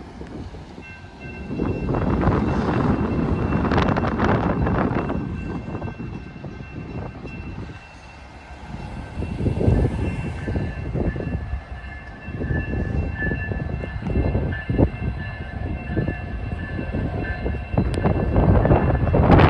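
Long CSX freight train rolling past, its wheels rumbling and clattering over the rail, with a few sharper knocks and a faint, steady high-pitched squeal.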